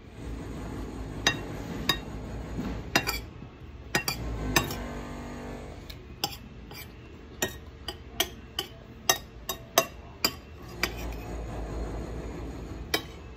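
Cutlery clinking against a plate while eating. Sharp, irregular clinks come a second or less apart, well over a dozen in all.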